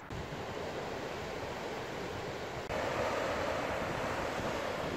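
Rough sea surf breaking and washing over coastal rocks, mixed with wind on the microphone. It gets louder suddenly about two and a half seconds in.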